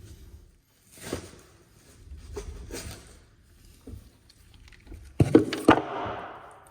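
Handling noises: rustling and scattered knocks, then a quick run of sharp knocks about five seconds in with a short fading tail.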